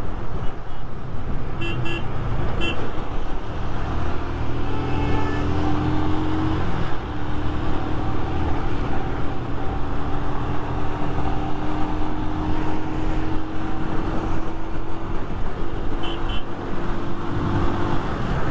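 Single-cylinder Royal Enfield Himalayan engine running at road speed under wind rush. Its note climbs slowly as the bike gathers speed, drops back about seven seconds in, then climbs again. A few short horn toots sound near the start, and a pair about sixteen seconds in.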